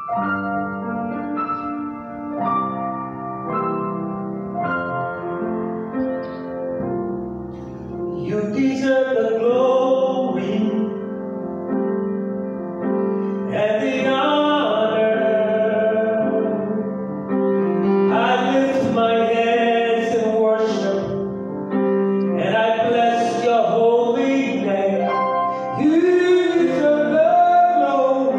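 Keyboard playing held chords in a piano sound, with a singer coming in over it about eight seconds in: a live worship song with keyboard accompaniment.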